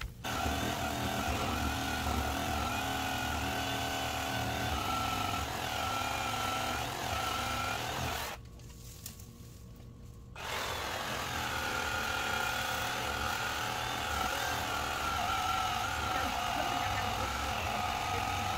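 Small two-stroke chainsaw running at high revs while cutting into a shrub at its base, easing off to a much quieter run for about two seconds near the middle before revving back up.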